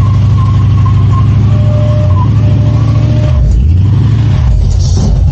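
Old Ford pickup truck's engine held at high revs in a burnout, with the rear tyres spinning on the pavement. About three and a half seconds in, the revs drop and the engine settles to a lower rumble.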